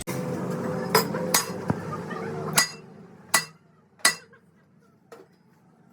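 Hammer blows on metal, about five sharp, ringing strikes at uneven intervals, with a fainter knock near the end. A steady machine hum runs under the first half and then falls away.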